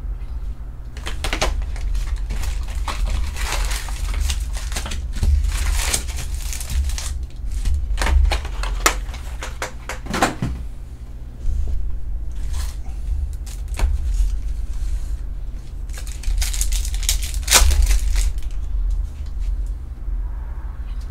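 Foil wrappers of 2020 Topps Chrome Formula 1 trading-card packs crinkling and rustling as the packs are pulled from the hobby box, handled and torn open, in a string of short sharp crackles. A steady low hum runs underneath.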